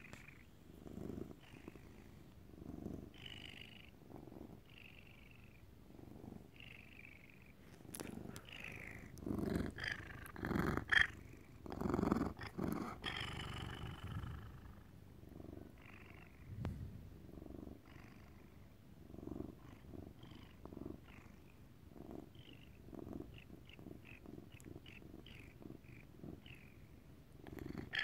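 Domestic cat purring right at the microphone, swelling about once a second. Rustling and brushing noises, loudest between about eight and fourteen seconds in, come from its fur rubbing against the microphone.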